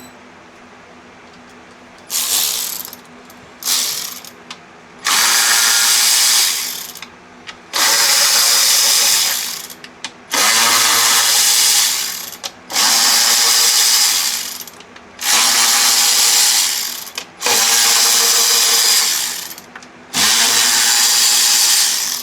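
Power tool run in repeated bursts, backing out the 8mm bolts that hold a Pentastar V6's upper intake manifold: two short bursts, then seven of about two seconds each, one bolt at a time.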